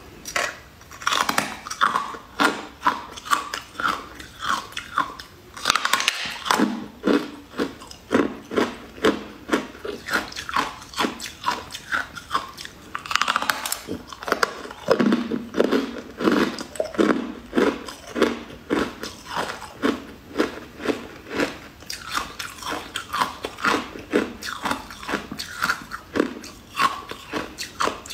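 Close-up crunchy biting and chewing of a crisp, purple waffle-patterned cake, a steady run of crunches about one to two a second. There are sharper bites about six and thirteen seconds in.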